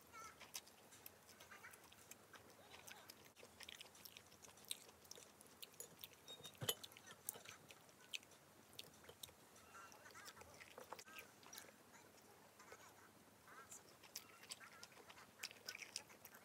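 Faint eating sounds: wooden spoon and chopsticks clicking and scraping in a ceramic bowl, with chewing. The clicks are scattered throughout, and one louder knock comes about seven seconds in.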